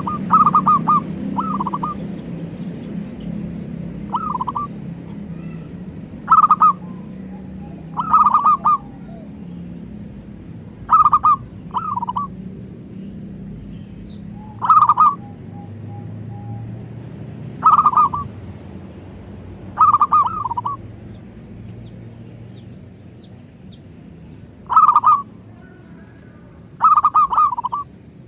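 Zebra dove (perkutut) cooing: short bursts of quick rolling notes, repeated every two to three seconds, over a faint low hum.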